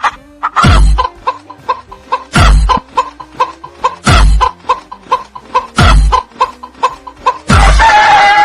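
Chickens clucking in quick short notes, about five a second, over heavy thudding beats that come roughly every second and a half to two seconds. A long, falling call, likely a rooster starting to crow, begins near the end.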